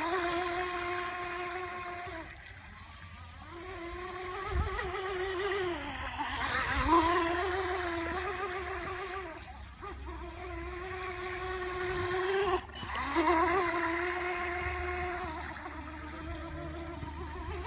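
Joysway Magic Vee RC mini boat's 5600kv brushless motor on a 3S LiPo, whining at a steady high pitch as the boat runs at speed. The whine drops away briefly several times as the throttle is eased and comes straight back.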